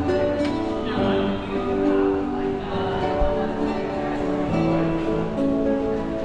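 Live acoustic guitar music, strummed and picked, with notes ringing on over one another.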